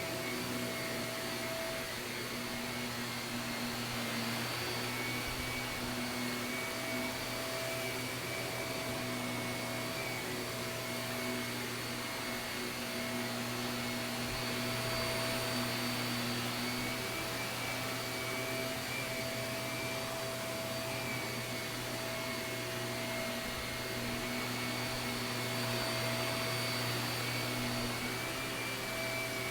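Shark vacuum cleaner running steadily on carpet: a constant motor whine over a wide airflow hiss, swelling a little in level a few times.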